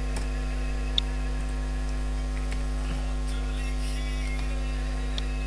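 Steady electrical mains hum with a low drone and evenly spaced steady tones above it, with a single short click about a second in.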